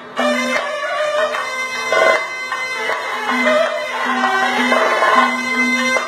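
Kerala traditional music. A reed wind instrument plays long held notes and a melody over quick chenda drum strokes.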